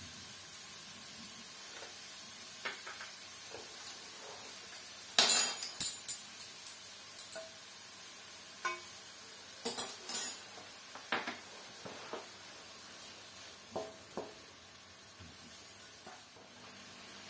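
Tuna and onion sizzling faintly and steadily in a non-stick wok, with scattered utensil clicks: a metal spoon clinking against a small glass bowl and a wooden spatula tapping and scraping in the pan. The sharpest clinks come in two clusters, about five and about ten seconds in.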